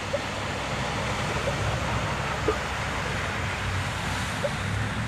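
Truck engine running as it drives through deep water, with a steady rush of water over it.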